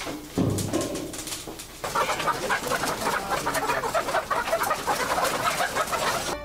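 A flock of caged laying hens clucking and calling in a dense chorus, which starts suddenly about two seconds in. Before it comes a short clunk and scrape from the steel door of a wood-fired heater being latched shut.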